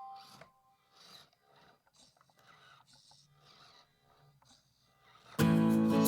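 Background music: a ringing note dies away, leaving a long gap of near silence with a few faint, short scraping sounds, then strummed guitar music starts abruptly about five seconds in.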